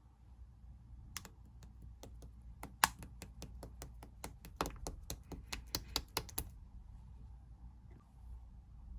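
White milky slime being pressed and worked by hand, giving a quick run of sharp popping clicks, about four a second, that stops about six and a half seconds in.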